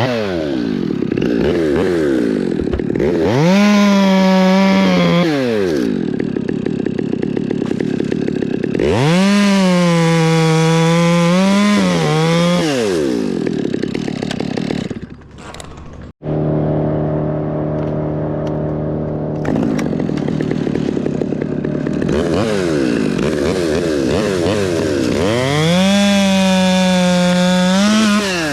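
Chainsaw revving up to full throttle three times, holding there for two to three seconds each time, and dropping back to idle in between, with a sudden brief dropout about halfway through.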